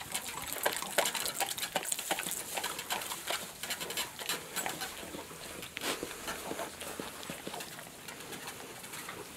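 Streams of milk squirted by hand from a cow's teat into a livestock guardian dog's open mouth, with the dog's wet gulping and smacking: many quick, irregular splashy clicks.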